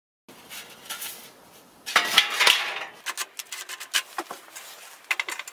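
Metal clinks, knocks and rattles of the sheet-metal casing ring around a millstone and tools being handled and fitted, with a louder scraping rattle about two seconds in.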